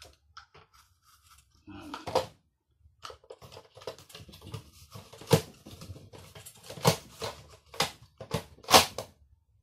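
Vegetable being pushed back and forth over a plastic mandoline slicer's blade insert with a hand-guard holder: a run of scraping strokes, each ending in a sharp plastic clack, starting about three seconds in after a single earlier scrape.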